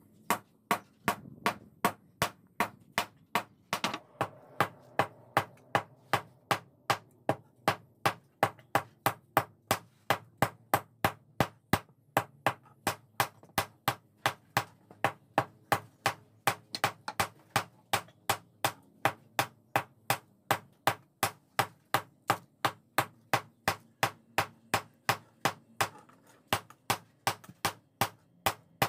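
Blacksmith's hammer striking hot steel on an anvil in steady, ringing blows, about three a second, hand-forging a folded pamor (pattern-welded) billet for a machete blade.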